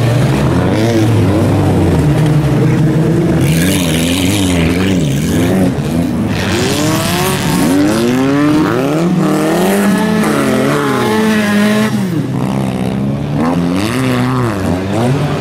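Several autocross race cars racing on a dirt track, their engines revving up and down through acceleration and gear changes, with steep rising revs about eight seconds in. Two bursts of rushing noise come at about four and seven seconds in.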